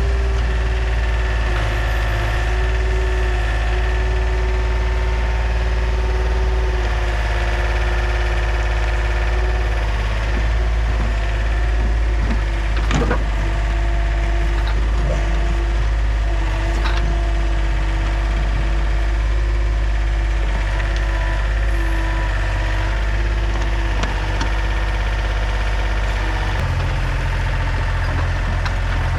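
John Deere 30 mini excavator (a Yanmar machine) running steadily while being operated, its engine hum overlaid by a hydraulic whine that shifts in pitch and comes and goes as the controls are worked. A couple of sharp clanks come around the middle, and the engine note changes near the end.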